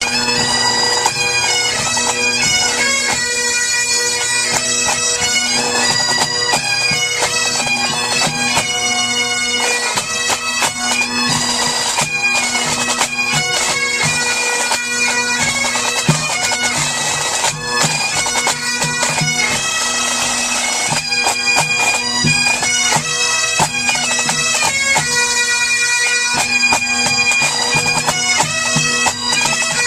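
Highland bagpipes of a pipe band playing a tune: a changing melody of high notes over steady, unbroken drones.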